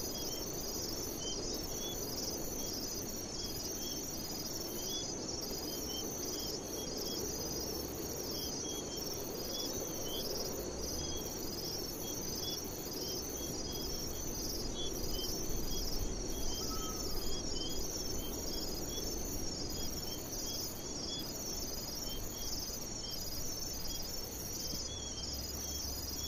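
Crickets or similar night insects chirping steadily, several overlapping rhythmic trills at different pitches, over a low, even background noise.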